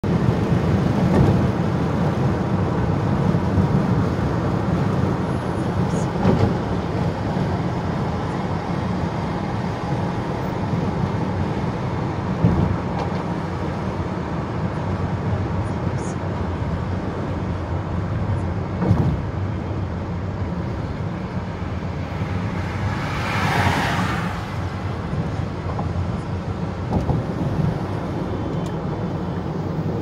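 Steady road and engine noise of a car driving at speed, heard from inside the cabin, with a few light knocks and a brief louder hiss about three quarters of the way through.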